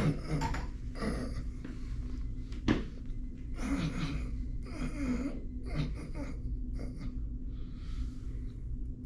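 A person breathing slowly in and out in a series of soft breaths, with one sharp crack a little under three seconds in.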